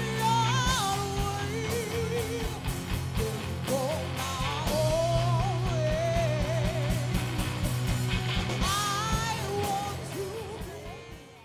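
Rock band playing with a woman singing a wavering, vibrato-laden melody over a steady bass note; the music fades out near the end.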